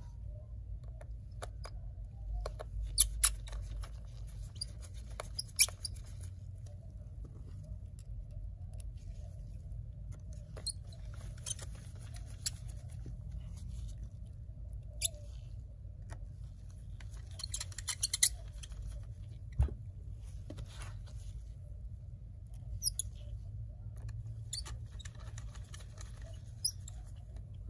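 Small precision screwdriver clicking and scraping on tiny screws as they are driven into a MacBook Air logic board: scattered sharp ticks and taps, a few louder clusters, over a low steady hum.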